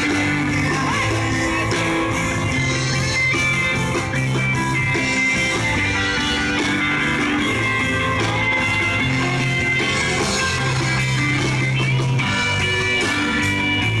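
Live band playing rock music, guitar to the fore over bass and a steady drum beat.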